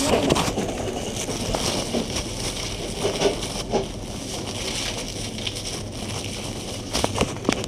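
Plastic produce bag rustling and crinkling while tomatoes are picked, with scattered small clicks and knocks, a cluster of them near the end.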